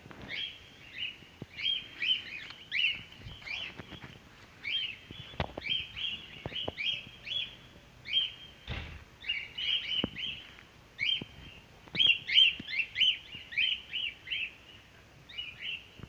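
Cockatiels giving rapid, repeated short chirping calls, many overlapping, with a few faint ticks among them.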